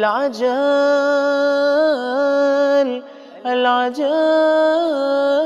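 A man's voice chanting an Arabic supplication in long, drawn-out melodic notes, repeating 'al-'ajal' (hasten), with a short breath pause about three seconds in.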